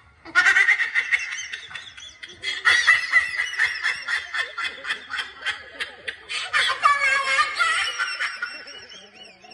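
People laughing in quick repeated bursts, starting about a third of a second in and carrying on after a brief lull.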